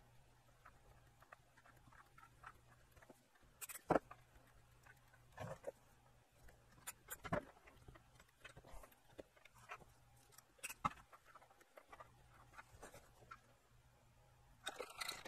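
Light knocks and clicks of an amplifier circuit board and its metal chassis being handled and turned over on a workbench, scattered a few seconds apart with the loudest about four seconds in, and a short rustle near the end. A faint steady hum runs underneath.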